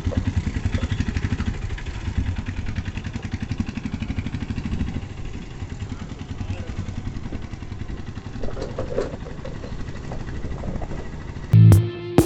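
A vehicle's engine running with an even, rapid low pulsing while under way, louder in the first half. Near the end, guitar music comes in.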